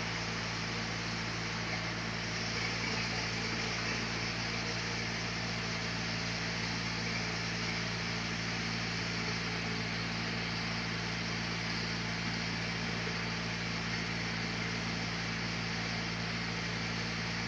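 Sawmill machinery running steadily, a constant mechanical hum with an even hiss and no distinct cuts or impacts.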